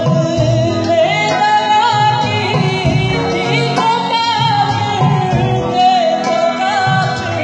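Loud live music with a lead singer holding and bending long sung notes over the band, recorded on a phone from within the audience.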